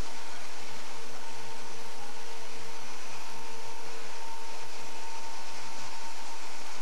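Machinery of a corn puff snack extrusion line running: steady motor and conveyor whir with a faint constant hum of two tones.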